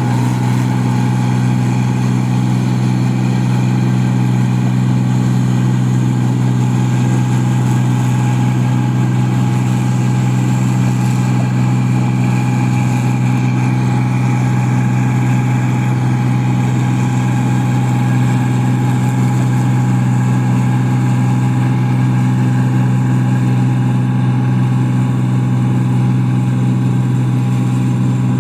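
Paddy machine running steadily: an even, unchanging mechanical drone with a thin steady whine above it.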